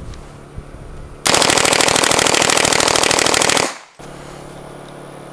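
Heckler & Koch MP5 9mm submachine gun firing on full auto: one continuous burst of rapid shots, starting a little over a second in and lasting about two and a half seconds, as the whole magazine is emptied.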